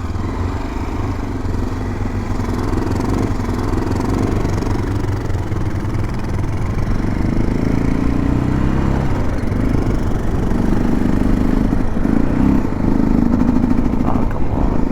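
Motorcycle engine running at road speed, its note growing louder and stronger about halfway through.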